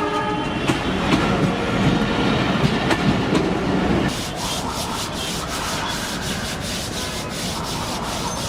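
A train passing close by, its wheels rumbling and clattering over the rail joints in a run of sharp, evenly spaced clicks from about halfway through. A steady horn tone dies away within the first half second.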